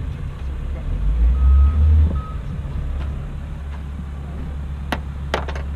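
A vehicle's reversing alarm beeps twice, a longer beep then a short one, over a steady low rumble. A few sharp clicks come near the end.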